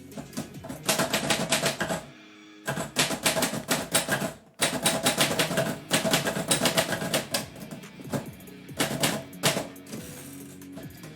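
Typewriter keys clacking in quick runs of typing, broken by short pauses, over background music.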